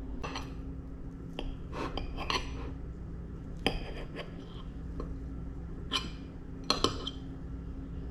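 Metal fork and knife clinking and scraping against a plate while cutting through pancakes: a string of short clinks, the sharpest a little past halfway and twice near the end. A steady low hum runs underneath.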